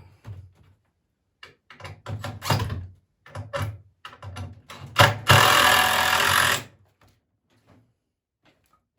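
Poplar swing boards knocking and thudding as they are handled and set in place, followed about five seconds in by a sharp knock and a loud hissing noise lasting about a second and a half.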